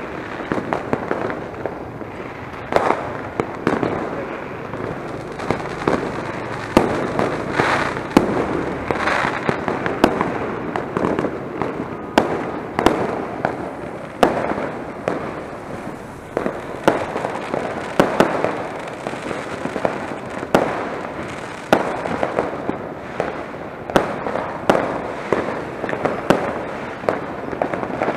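Fireworks and firecrackers going off all around: sharp bangs at irregular intervals, often less than a second apart, over a steady background of crackling.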